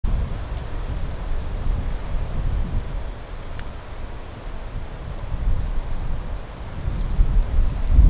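High-pitched insects trilling steadily, with a regular pulse, over a strong low rumble of wind on the microphone.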